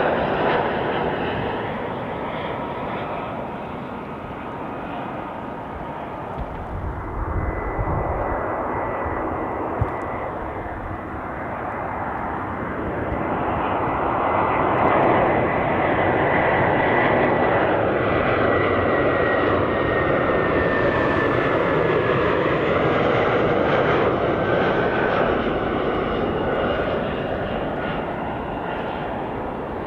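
Airbus A320-family twin-jet airliners on final approach: steady jet engine noise with a high whine that slowly drops in pitch as the aircraft passes, swelling in loudness midway. A single sharp click about ten seconds in.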